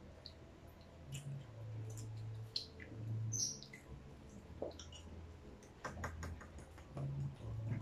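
Eating sounds of fried chicken and spaghetti: scattered small clicks and crackles of chewing and of hands and a plastic fork working at food and paper boxes, with a brief high squeak about three seconds in and a low hum coming and going underneath.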